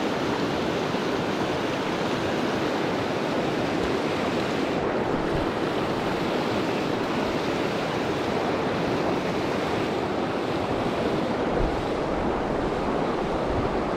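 Steady rushing of flowing river water, an even noise without breaks.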